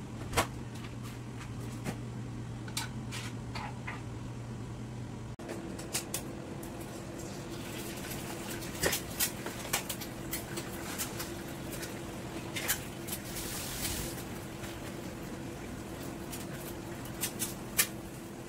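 Kitchen handling sounds: scattered light clicks and knocks, then a wooden spatula tapping and scraping in a pan on a gas stove, with short bursts of hiss. A steady low hum runs underneath and changes pitch about five seconds in.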